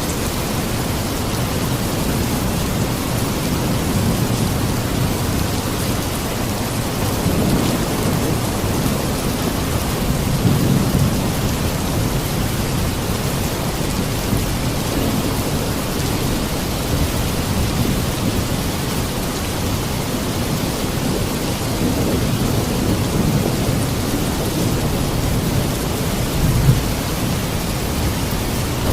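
Steady rain, with low rumbles of thunder swelling up a few times and a short sharp peak near the end.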